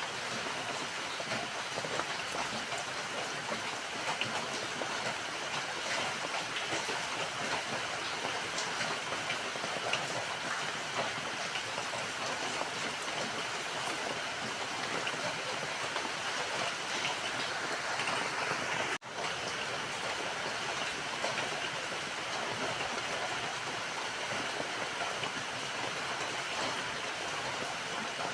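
Steady rain falling, a dense even hiss of many small drop patters. The sound drops out for an instant about two-thirds of the way through.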